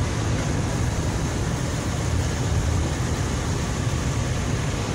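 Steady rumble of road and engine noise heard from inside a moving car's cabin, even throughout with no distinct events.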